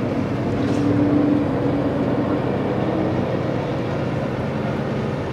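A heavy truck engine idling steadily, a low even hum that swells slightly about a second in.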